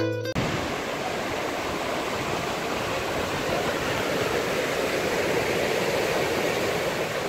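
Ocean surf on a beach: a steady rush of waves washing in.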